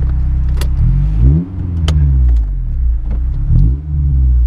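Honda S2000 AP1's F20C four-cylinder engine, breathing through a J's Racing 60RS exhaust and test pipe, idles steadily and then revs up and down. The sound cuts out sharply for a moment about a second and a half in and again near the end.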